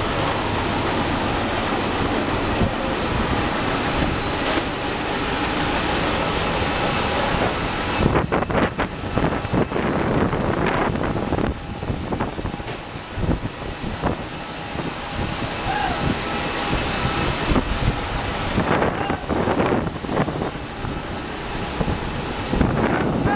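Steady rushing noise of airport ground equipment and the parked airliner's running systems. From about eight seconds in, irregular wind gusts buffet the microphone.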